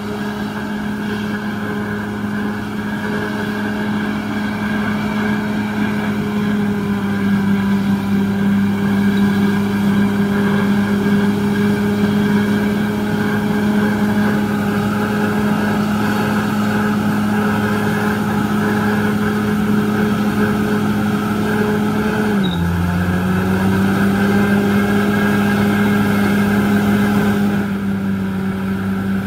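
Bulldozer's diesel engine running steadily under work. About 22 seconds in its pitch drops suddenly, then climbs back up, and it gets a little quieter near the end.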